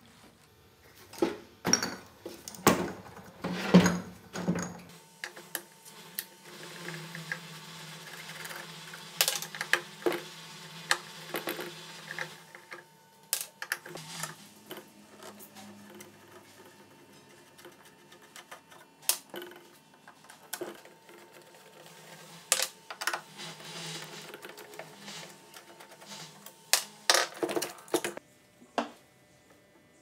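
Irregular metal clicks, knocks and clanks from hand tools and sheet-metal parts as an old rusty refrigerator is taken apart. The knocks come thickest in the first few seconds and again near the end.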